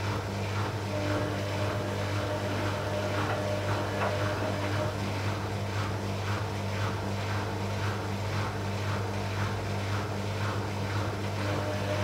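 Bauknecht-built Arçelik 5900E front-loading washing machine turning its drum with a single wet bath towel inside, as it tries to balance the load before spinning. Its motor gives a steady low hum, and the tumbling towel makes a rhythmic swish a few times a second. There is one short click about four seconds in.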